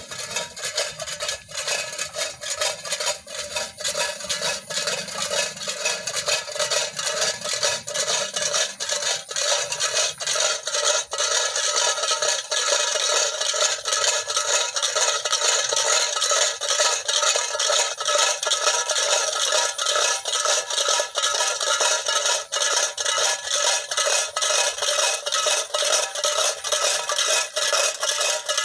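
Rope-pulled tin cans filled with small stones, clattering and rattling loudly and without a break: a traditional bird scarer shaken to drive sparrows and munias off ripening rice.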